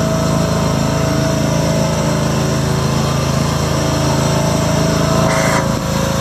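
A 1986 John Deere 180 lawn tractor's 17 hp Kawasaki gas engine runs steadily at a constant speed while the tractor drives along. A brief hiss comes about five seconds in.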